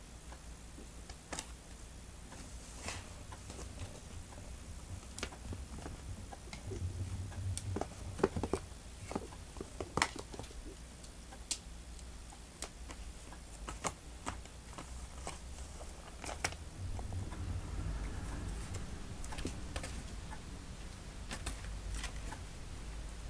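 Kittens' claws scratching and scrabbling on a corrugated cardboard scratching board, heard as scattered sharp clicks and light scrapes.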